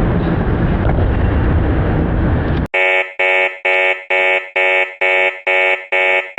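A loud, dense rumbling noise cuts off abruptly under three seconds in. It gives way to a repeating electronic beep, a bright buzzer-like tone pulsing about twice a second, about eight beeps in all.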